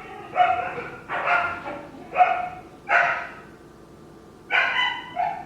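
Pet dogs shut in a kennel barking and yelping, about five separate calls, fussing to be let out.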